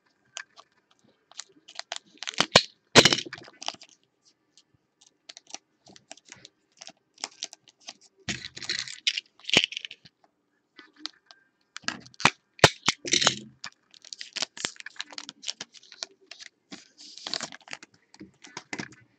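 Foil trading-card pack being torn open and the cards inside handled: sharp clicks and crinkles of the wrapper, with several short bursts of rustling.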